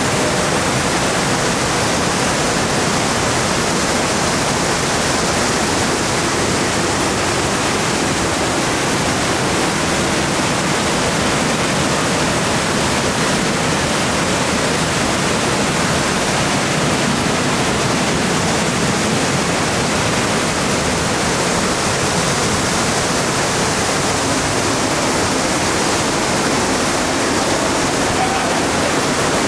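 A waterfall plunging into its pool: a steady, even rush of falling water that does not change.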